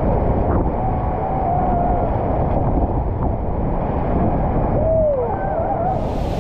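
Steady roar of the Iguazu Falls cascades and the churning white water below them, with wind buffeting the microphone. Brief high, wavering cries rise over it about a second in and again around five seconds.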